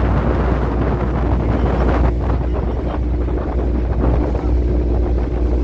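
Wind buffeting the microphone with a steady low rumble, over the drone of a motorboat under way; a faint steady engine tone comes through from about two seconds in.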